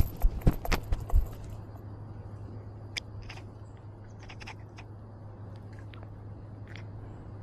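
Clicks and knocks right at a cat's collar-mounted camera as the cat moves: a quick cluster in the first second or so, then scattered light clicks, over a low steady hum.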